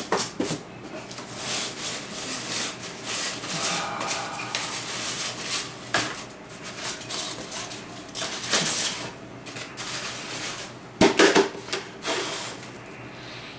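Styrofoam packing being pulled out of a shipping box and handled: irregular rustling, rubbing and scraping, with a few sharp knocks, the loudest about eleven seconds in.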